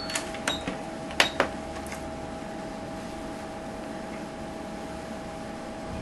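Ultrasound machine: about six sharp clicks of its console controls being pressed in the first two seconds, then a steady two-tone electronic hum.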